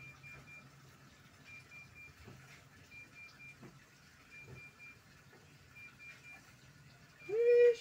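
A cat meows once, loudly, near the end, its pitch rising and then holding. Before it, faint short high triple beeps repeat about every second and a half over a low steady hum.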